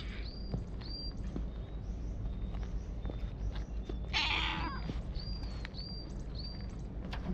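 A stray tabby cat meowing once, a short call lasting about half a second, about four seconds in.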